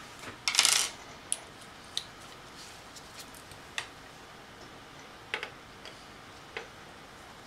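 Gloved hands handling a small screwdriver and an opened 2.5-inch hard drive on a tabletop: a short clattering rattle about half a second in, then a few light, sharp clicks spread through the rest.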